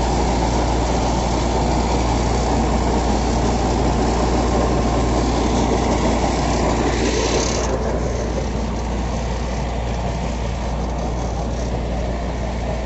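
Tractor diesel engine running steadily under load while pulling a super seeder. The sound drops somewhat about eight seconds in.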